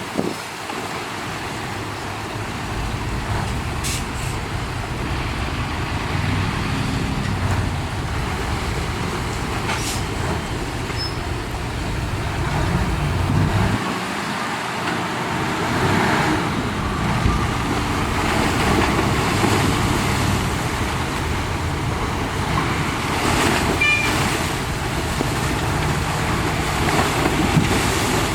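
Heavy dump truck's diesel engine running, its pitch and level shifting as it works, with a few brief sharp clicks.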